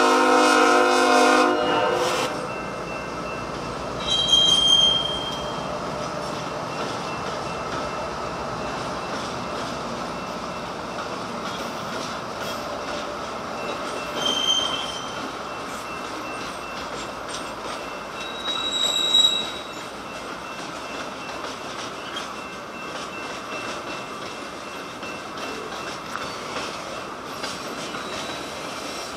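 Diesel freight locomotive's multi-chime air horn sounding, cutting off about two seconds in. It is followed by the steady noise of a long train of loaded flatcars rolling past, with short high wheel squeals three times.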